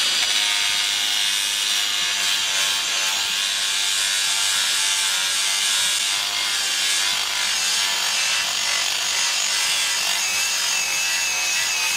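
Worx battery-powered angle grinder with a 115 mm poly abrasive disc running against a rusty iron gate rail, stripping rust and flaking paint. It makes a steady high motor whine over a rough rubbing hiss, and the pitch dips slightly near the end.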